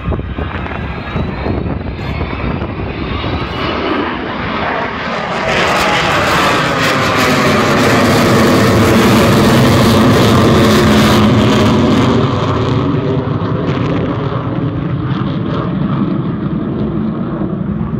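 Avro Vulcan bomber's four Rolls-Royce Olympus turbojets as it flies past low overhead. The jet roar builds to its loudest in the middle, with tones sweeping down in pitch as it passes, then fades a little as it climbs away.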